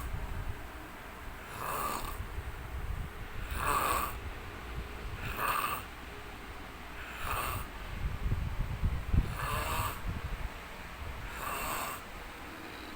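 A sleeping man snoring in a steady rhythm, a breath about every two seconds, with low rattling snores between breathy hisses.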